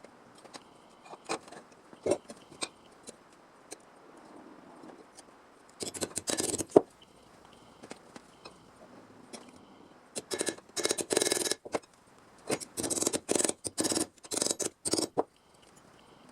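Hand tool cutting or working sheet steel: scattered clicks and taps, a brief burst about six seconds in, then a run of short, noisy scraping strokes from about ten seconds in until shortly before the end.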